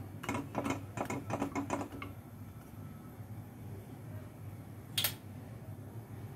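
A quick run of about eight light taps in under two seconds, then a single tap about five seconds in: a utensil knocking on a tawa while a paratha is dry-roasted on it.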